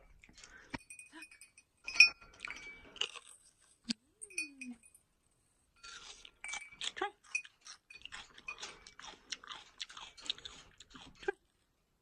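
Crunchy chewing of raw yellow bell pepper, a quick, irregular run of crisp bites in the second half, with a few short high tones about two seconds in.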